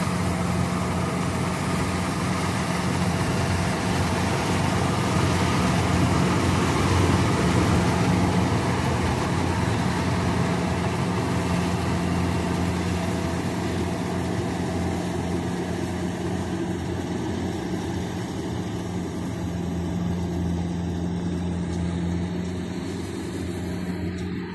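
A Kubota rice combine harvester's diesel engine runs steadily while the machine cuts rice: a constant low hum over broad mechanical noise. It grows gradually fainter as the harvester moves off through the paddy.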